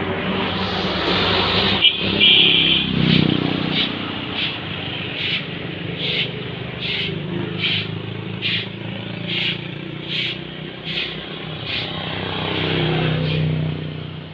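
A motor vehicle engine running, swelling and passing near the end, then fading. Over it a high chirp repeats regularly, a little more than once a second.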